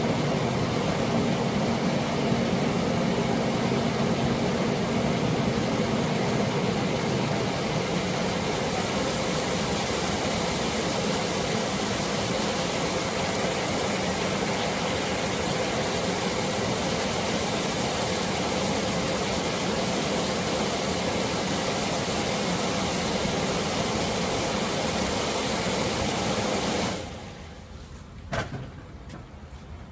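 Electric air blower of an inflatable ride running steadily with a whirring hum. It cuts out sharply near the end, followed a second later by a single knock.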